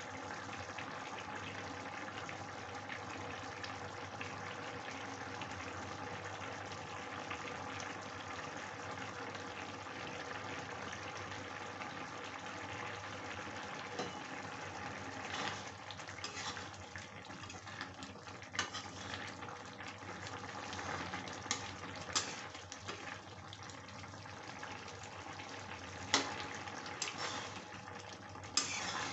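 Soybean and potato curry simmering in a kadhai: a steady bubbling hiss, with scattered pops and clicks in the second half. Near the end a spatula starts stirring the gravy.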